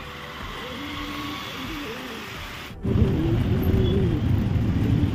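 Motorcycle traffic heard from a moving motorbike: engine and road noise from the surrounding scooters and motorcycles. Almost three seconds in, the sound jumps to a much louder low rumble.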